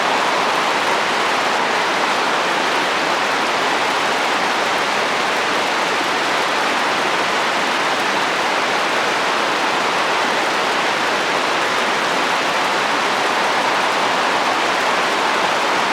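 Steady rain falling on a roof with wind, an even hiss with no let-up or change.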